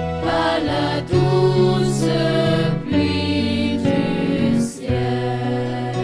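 Organ playing slow held chords of a Christian hymn, the chord changing about every two seconds, with the choir's voices.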